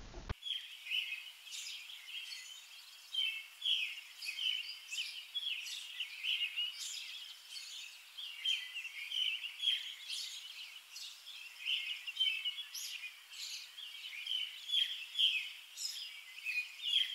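Birds chirping: a dense, continuous run of short, high chirps, several a second.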